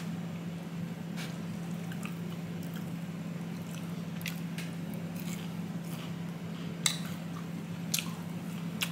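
Close-up eating sounds: a person chewing and tearing crisp fried chicken tenders apart by hand, with scattered sharp little crackles and wet mouth clicks, the loudest about seven and eight seconds in. A steady low hum runs underneath.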